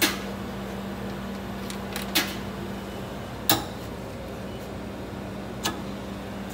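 Coins dropping one at a time into a vending machine's coin acceptor, four short metallic clinks spaced about a second or two apart, over a steady low hum from the machine.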